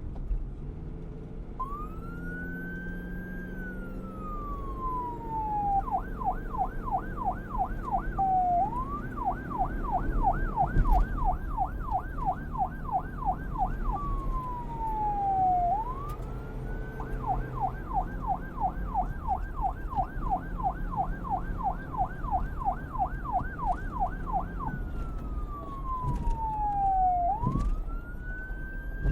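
Police siren switching between a slow wail, rising and then falling over a few seconds, and a fast yelp that warbles about three to four times a second, over a low background rumble.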